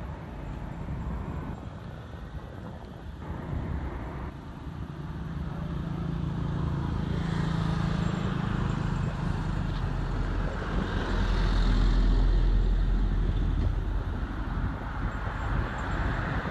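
A motor vehicle passing close by: a low engine and road rumble that slowly builds to its loudest about three-quarters of the way through, then eases off.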